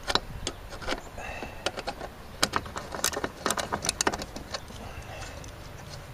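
Irregular sharp metallic clicks and taps from a ratchet wrench and the loosened bevel pivot of a compound miter saw being handled. The clicks come thickest between about two and four seconds in and thin out after that.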